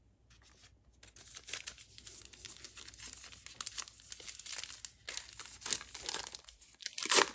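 Foil wrapper of a 2021 Panini Legacy football card pack crinkling and tearing as it is opened by hand. It starts about a second in, keeps crackling, and is loudest near the end.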